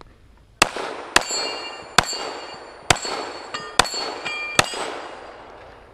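Six .45 ACP shots from an STI Trojan single-stack pistol, fired at an even pace a little under a second apart. Steel targets ring with a clang after the hits.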